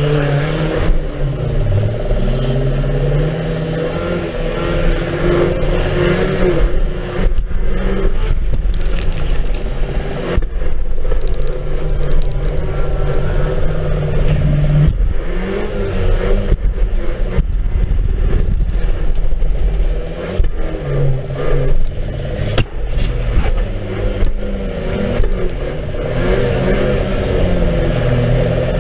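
Banger race car's engine heard from inside the stripped-out cabin, revving up and down as it is driven hard around the track, with repeated knocks and clatter from the bare bodyshell.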